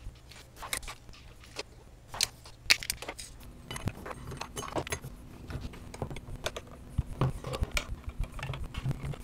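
Thin stainless steel shim stock being cut on a lever-operated bench shear, then small shim washers, cap screws and an Allen key clinking against an aluminium fixture. A run of sharp, separate metallic clicks and clinks that come thicker after about three and a half seconds.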